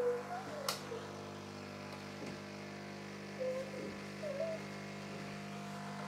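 De'Longhi Nescafé Dolce Gusto Genio S pod coffee machine's pump humming steadily while it forces hot water through a coffee capsule, with a sharp click less than a second in.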